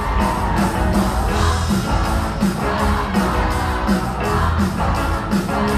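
Upbeat rock-and-roll show music with a fast, steady beat and a group of voices singing over it.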